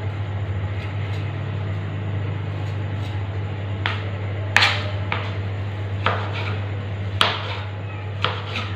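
Knife striking a cutting board in a handful of sharp chops, roughly one a second, through the second half, over a steady low hum.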